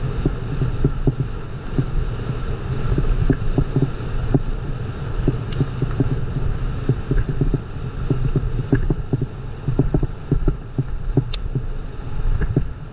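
Wind buffeting the microphone during a bikejoring ride, a steady low rumble broken by frequent irregular knocks and rattles, with two sharp clicks about five and eleven seconds in.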